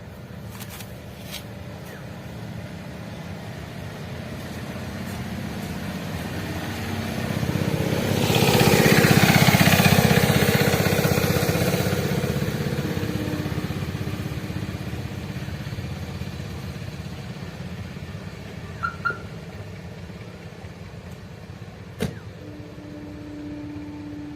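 Maruti Suzuki Alto K10's small three-cylinder petrol engine running as the car drives, growing louder to a peak about nine seconds in, then fading as it moves away.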